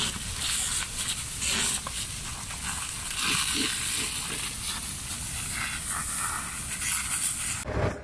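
Fire hose jet spraying water onto a burning pile of tyres: a steady hiss of spray and flames, which cuts off suddenly near the end.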